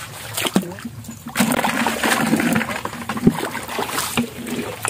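Shallow water splashing and sloshing beside a small canoe, with one sharp knock a little over three seconds in.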